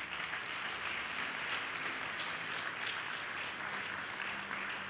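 Congregation applauding: many hands clapping together in a steady, even wash of sound.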